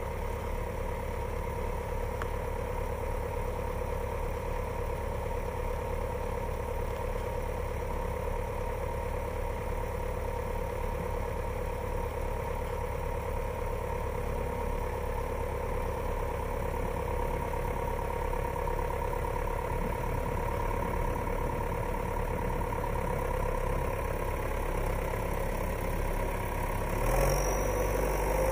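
A 2000 John Deere 6410L tractor's 4.5 L four-cylinder turbocharged diesel engine idling steadily.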